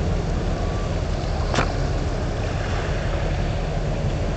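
Steady low rumble of a Hyundai container ship passing close by, mixed with wind on the microphone and water. A single sharp click about a second and a half in.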